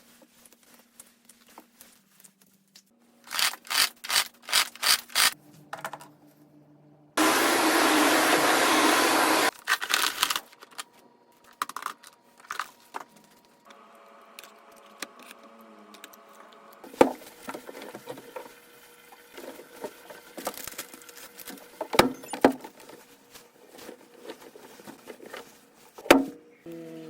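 Household chores: a quick run of about eight rustling strokes, then a vacuum cleaner running loudly for about two seconds and cutting off abruptly, followed by soft rustling, handling noises and a few sharp knocks over faint background music.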